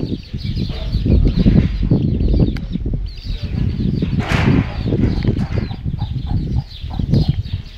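Heavy low rumbling noise on the phone's microphone, with hens clucking and chicks cheeping in short high peeps in the background.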